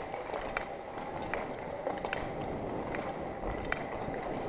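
Ice skate blades scraping over the ice as a skater strides, with a sharp click about every three-quarters of a second, under a steady rush of air.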